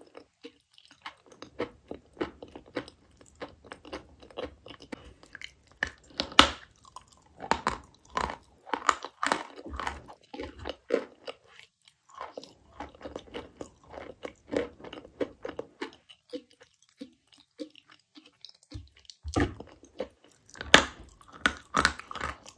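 Dry chalk being bitten and chewed close to the microphone: many sharp, irregular crunches, with a quieter spell shortly before the end and a loud burst of crunching near the end.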